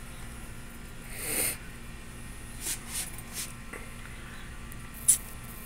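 Hand tap in a T-handle wrench being turned back and forth in a threaded hole of an aluminium cylinder head: a brief rushing scrape about a second in, a few faint ticks, and one sharp metal click near the end, over a low steady hum.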